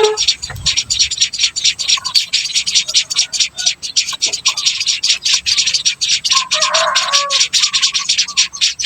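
Society finch nestlings begging: a rapid, continuous high-pitched chittering, with a few short lower calls and a louder burst of calls about seven seconds in.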